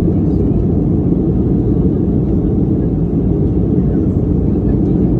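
Steady low rumble and rush of a Boeing 737-800 in the climb, its CFM56-7B engines and the airflow heard inside the passenger cabin.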